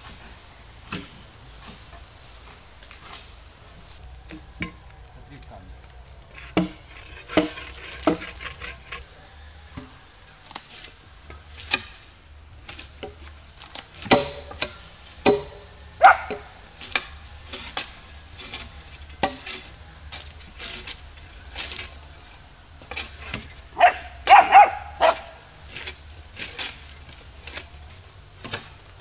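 Bark being scraped and chipped off pine logs with shovel blades: irregular scraping and knocking strokes of metal on wood. A brief, louder voice-like sound is heard a few seconds before the end.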